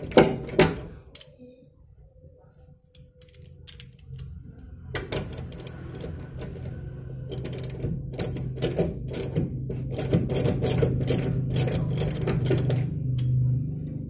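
Socket ratchet clicking as it tightens the top mount nut of a Suzuki Carry's front shock absorber, drawing the shaft up through the mount. Two loud clicks at the start, then from about five seconds in, quick runs of ratchet clicks over a steady low hum.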